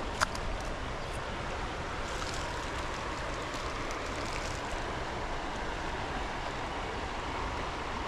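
Steady rushing of a creek's flowing water, with one sharp click about a quarter second in.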